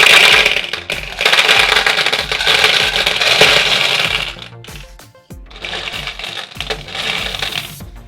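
Plastic packaging of a Gumball surprise cube crackling and crinkling as it is torn open by hand, in two long stretches, the second starting about five seconds in. Background music plays underneath.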